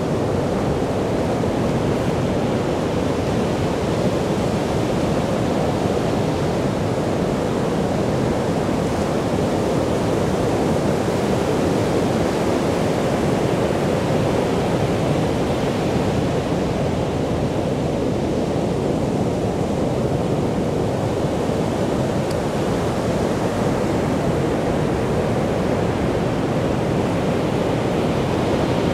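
Sea surf breaking and washing up a beach: a steady rush of waves.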